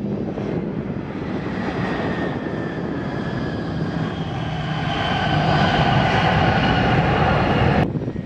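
Airliner's engines running as the plane passes: a rumble with a whine that grows louder and slowly drops in pitch, then cuts off suddenly near the end.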